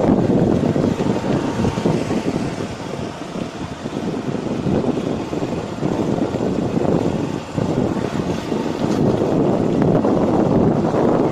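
Wind buffeting the microphone of a moving motorcycle, with the bike's riding noise under it, rising and falling and easing briefly a few seconds in and again past the middle.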